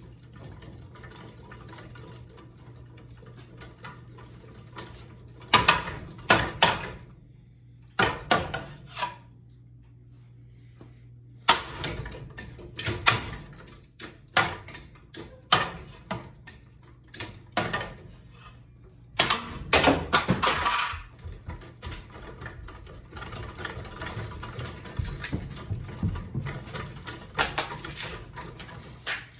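Metal and plastic parts of a ceiling fan clanking and rattling as they are knocked and handled, in irregular clusters with short pauses, busiest in the middle, over a steady low hum.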